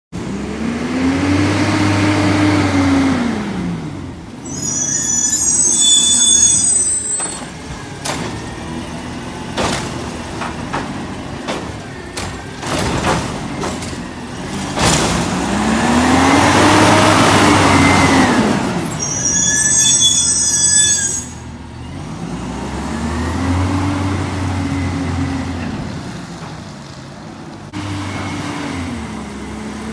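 Autocar Bridgeport garbage truck's CNG engine revving up and falling back three times as the automated arm works, with two sharp hisses of air being released and a run of knocks and clanks in the middle. Near the end the engine settles to a steady pitch.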